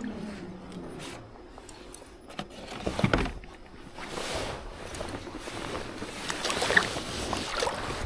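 Water splashing and sloshing with knocks on rocks as someone moves through a shallow, rocky river, with a dull thump about three seconds in.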